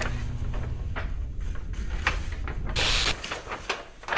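Large loose printed proof sheets of a picture book being handled and turned: paper rustling and crackling, with a louder swish of a sheet about three seconds in.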